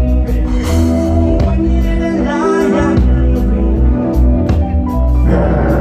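Live reggae band playing loudly through a PA: bass guitar, drums and guitars, with the lead singer singing into the microphone over a heavy, steady bass line.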